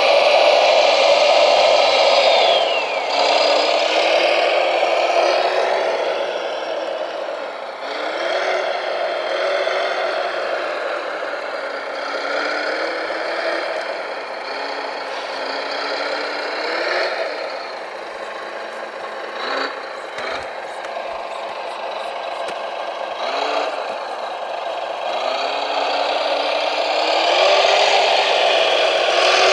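Radio-controlled Volvo L250G model wheel loader at work: its motors whine steadily, with a pitch that rises and falls every few seconds as it drives and works the bucket. Gravel rattles and clatters under the tyres and out of the bucket, with a few sharp knocks in the middle.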